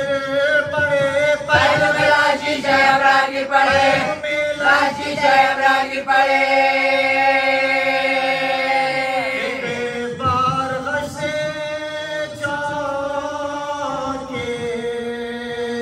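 Group of voices chanting a nauha, a Shia mourning lament, over a steady drone, with one long held note near the middle that slides down at its end.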